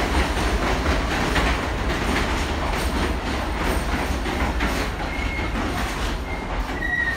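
R160 subway train on the Q express running through the station at speed without stopping: a steady rumble with repeated clicking of wheels over rail joints, and a thin high wheel squeal coming in near the end.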